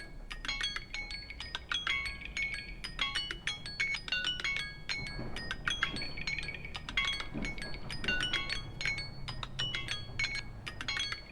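Samsung Galaxy A12 phone ringtones playing: a quick, dense run of bright chiming notes that often overlap.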